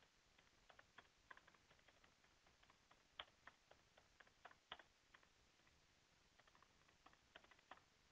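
Faint typing on a computer keyboard: irregular, quick key clicks, with a brief pause a little past halfway.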